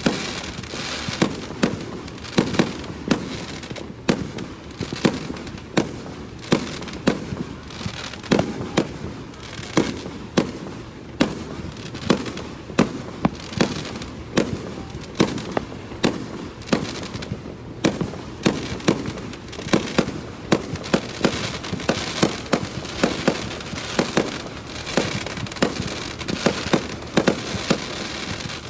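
Aerial fireworks launching and bursting in quick succession: sharp bangs roughly one to two a second over a continuous crackle.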